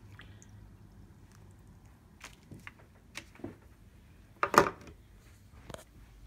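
Handling noise: a few light clicks and knocks, with one much louder knock about four and a half seconds in, as a handheld phone is moved and turned around.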